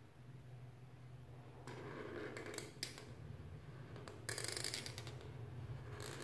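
Black marker pen tip scratching across paper as lines are drawn: a scratchy stroke about two seconds in and a shorter, louder one about four and a half seconds in, over a low steady hum.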